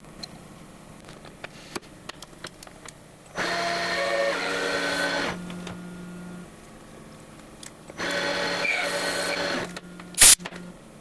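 Metal lathe with a 1/8-inch part-off tool cutting a groove in a spinning knurled hammer handle: two loud spells of cutting, each a couple of seconds long, with a ringing, pitched squeal from the tool in the metal. Light ticks come before the first cut, and a single sharp knock comes near the end.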